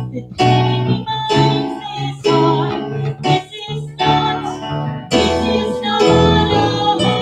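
A woman singing a song into a microphone, accompanied by acoustic guitar.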